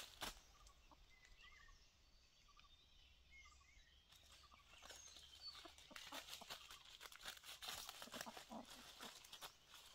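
Faint crackling and rustling of dry leaf litter as roosters move and scuffle. From about halfway through it thickens into many short crackles, with faint small-bird chirps before that.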